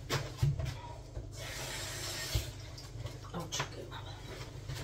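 Kitchen tap running for about two seconds while a peeled potato is rinsed under it, with a few light knocks before and after.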